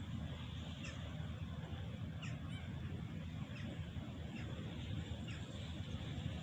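Birds calling, a string of short falling cries about once a second, over a steady low rumble.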